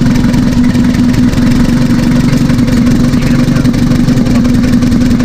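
Nissan Frontier D22's four-cylinder diesel engine idling steadily with a rapid, even clatter while its injector fuel lines are being bled.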